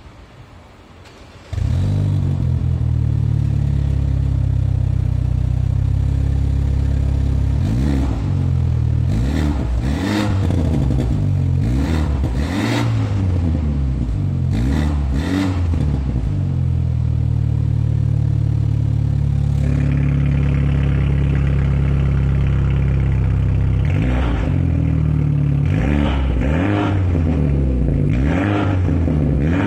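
BMW N20 2.0-litre turbocharged four-cylinder in an F30 3 Series, heard at the tailpipes of a Fi aftermarket valved exhaust: it comes in abruptly about a second and a half in, runs at a steady idle, and is revved in a string of quick blips that rise and fall. Around twenty seconds in the idle turns raspier, and more rev blips follow near the end.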